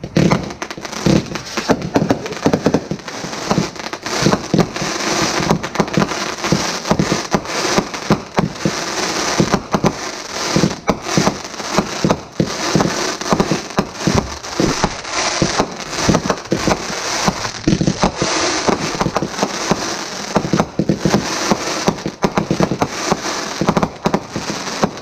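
Aerial fireworks going off in a continuous finale: many bursts overlapping one another with crackling, without a break.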